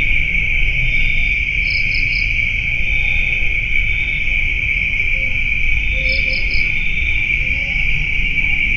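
Steady night chorus of crickets, a constant high shrill drone over a low rumble. Two short runs of three quick, higher chirps come about two seconds in and again about six seconds in.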